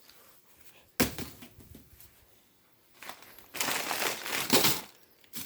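Packaging crinkling and rustling as fireworks are picked up and handled: a sudden rustle about a second in, then a longer stretch of crinkling near the end.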